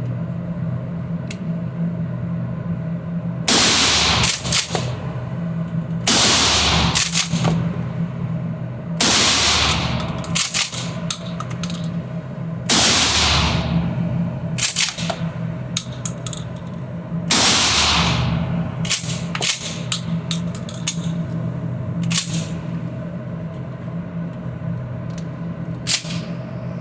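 Mossberg 590 pump-action 12-gauge shotgun firing buckshot: five loud blasts a few seconds apart, each ringing out for about a second. Shorter, quieter cracks and clacks fall between them, over a steady low hum.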